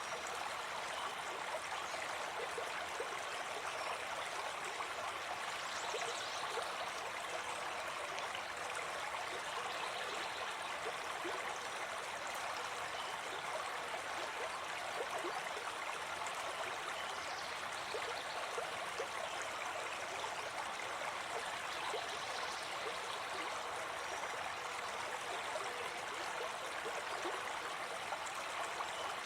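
Forest stream running over rocks, a steady rushing and gurgling of water, with a few faint bird calls high above it now and then.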